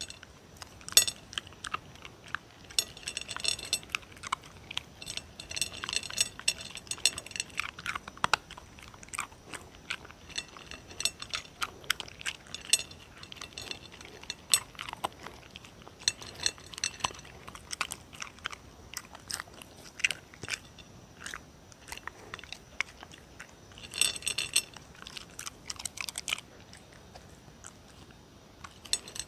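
Puppy crunching and chewing dry kibble from a plate, close to the microphone: irregular sharp crunches and clicks, coming in bursts with short pauses between mouthfuls.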